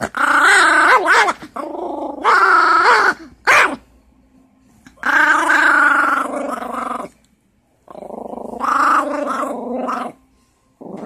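Small Morkie dog (Maltese–Yorkshire terrier cross) growling in about five loud bouts with short pauses, while being wrestled by hand. The growling sounds vicious but is play growling.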